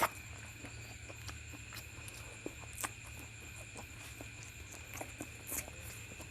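Close-up eating sounds: chewing and small wet mouth and finger clicks scattered irregularly, a slightly sharper click right at the start. A faint steady high whine and low hum run underneath.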